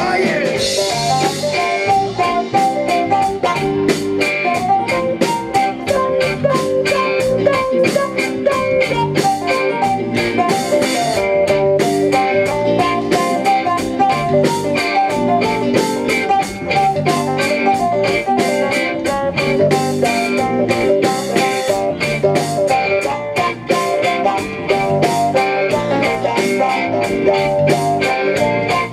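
Live band playing an instrumental section: electric guitar over drum kit and bass guitar with a steady beat.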